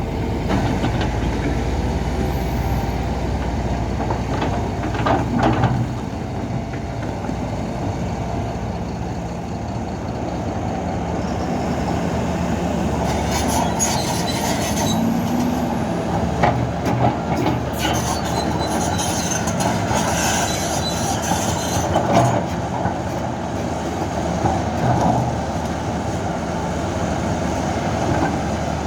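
SANY hydraulic excavator working: its diesel engine runs steadily under load, with high-pitched squeals and sharp metallic clanks over it, more of them in the second half.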